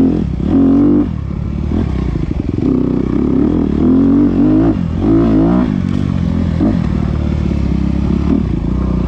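Honda CRF250RX single-cylinder four-stroke dirt bike engine revving up and down repeatedly as it is ridden along a rough trail. Near the end it settles to a steadier low note.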